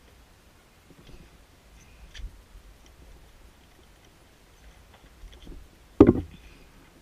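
Light clicks and handling noises as hands work on a motorcycle's headlight wiring, then a single loud thump about six seconds in.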